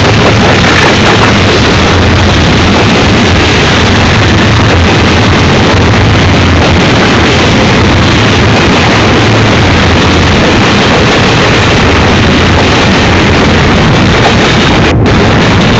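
Union Pacific double-stack container train rolling past close by: a loud, steady rush of wheel and rail noise. A low diesel drone from the locomotives fades out after about six seconds as the container cars follow. The sound cuts out for a moment near the end.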